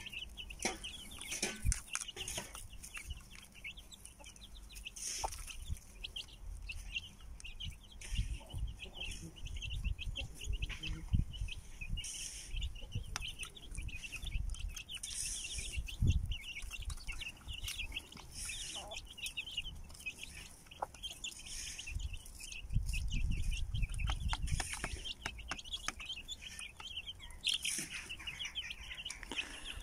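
A mother hen clucking among her brood of young chicks, which peep continually in short, high calls.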